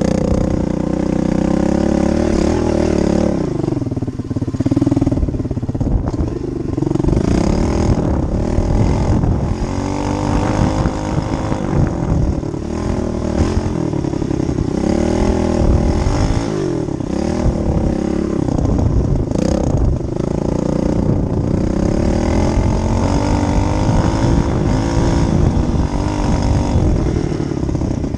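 SSR dirt bike engine running and revving up and down over and over, its pitch rising and falling every few seconds.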